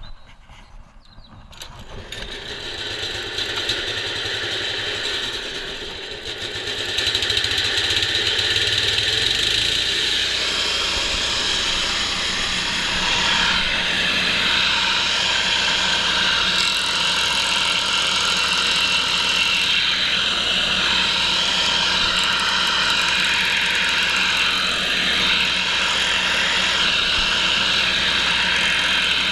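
Camon C50i wood chipper, driven by a Honda GX160 single-cylinder four-stroke petrol engine, running up to speed over the first several seconds and then running steadily at full speed with a high whine.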